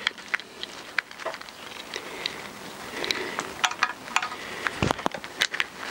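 Small clicks and rattles of a motorcycle's plastic handlebar switch-gear housing and throttle cable being handled and turned as the cable end is screwed in. A single dull knock comes about five seconds in.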